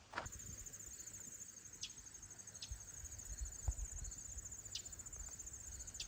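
High, steady insect trill made of a fast, even pulse, which starts just after the opening and cuts off near the end. A few short high chirps break in, over faint footsteps on the road.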